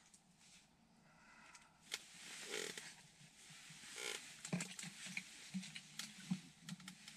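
Quiet handling sounds as hands work small fishing tackle: irregular rustling of winter clothing and small clicks, with a couple of louder rustles a few seconds in.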